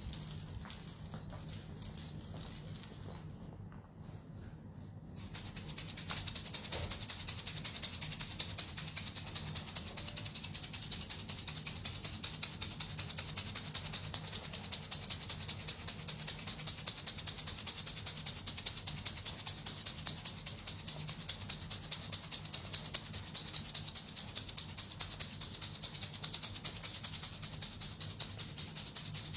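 Small bells jingling and ringing briefly, then after a short pause a handheld rattle shaken quickly in a fast, even rhythm that keeps going, played as healing-session sound.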